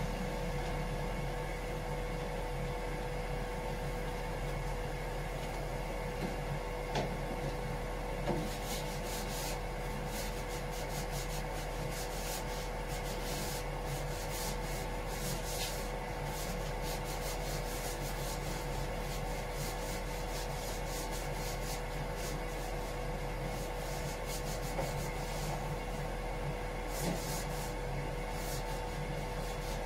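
Sanding of the engine-room bilge surface in preparation for topcoat: irregular scratchy rubbing strokes, thickening from about nine seconds in, over a steady mechanical hum.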